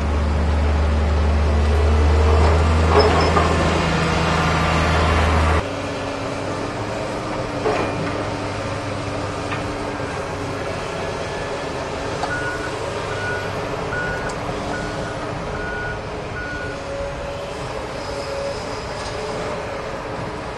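Heavy construction machinery: a wheel loader's diesel engine running loud for the first five and a half seconds, cutting off suddenly, then a tracked excavator's diesel engine working steadily. From about twelve to seventeen seconds in, a back-up alarm beeps at an even pace, roughly once every two-thirds of a second.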